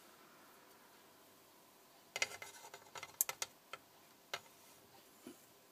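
Metal feeding tongs clicking and ticking, a quick run of light sharp clicks starting about two seconds in, then a few single clicks.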